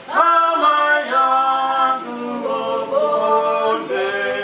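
A woman singing long held notes that slide from one pitch to the next into a microphone.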